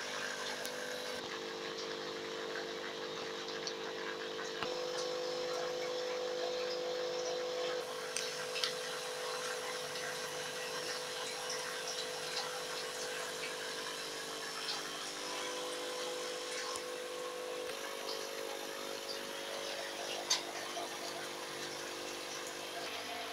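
Steady hum of aquarium pumps and filters, with an even hiss above it. The hum's pitch shifts slightly a few times, and there are a couple of light clicks.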